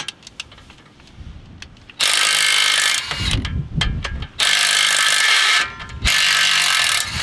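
Cordless impact wrench hammering in three bursts of about a second each, spinning out a 21 mm brake caliper bolt that has already been broken loose.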